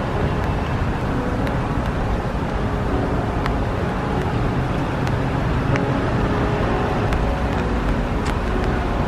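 Stormy city ambience: a steady low rumble of traffic and wind, with scattered sharp ticks through it.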